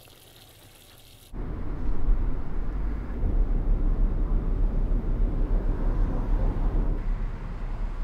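A faint steady high hiss for just over a second, then, from a sudden cut, loud steady road noise inside a moving car: a low rumble of tyres and engine at freeway speed.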